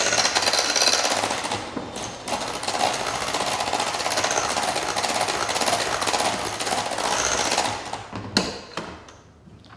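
Electric hand mixer running with its beaters in a glass bowl of cream cheese batter, a steady whirring rattle. It stops about eight seconds in, followed by a sharp knock or two.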